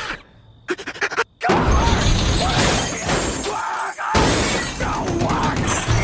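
Cartoon sound effects: a vending machine clicks a few times as it takes a dollar bill, then it fires out soda cans in a long, loud barrage of crashing and clattering. Music runs underneath.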